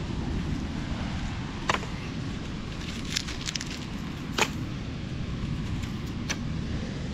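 Low wind rumble on the microphone, with scattered sharp clicks as small bits of litter are picked out of dry sand and debris. There is one click about two seconds in, a quick run a little after three seconds, the loudest about four and a half seconds in, and one more near the end.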